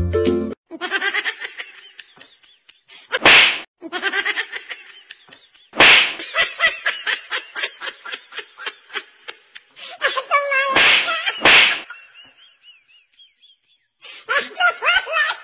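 Stretches of rapid, pulsing laughter broken by short, loud, smack-like bursts: one about three seconds in, one near six seconds, and two close together around eleven seconds.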